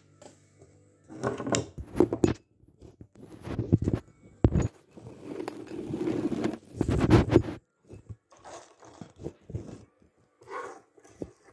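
Handling noise on a phone's microphone: irregular rubbing, scraping and knocks as the phone is moved about and pressed against skin.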